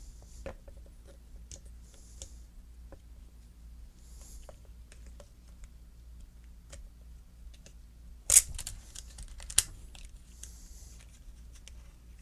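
Small clicks and taps of a plastic chainsaw pull-starter housing and its coiled recoil spring being handled and pressed into place, with two louder sharp clicks about eight and nine and a half seconds in.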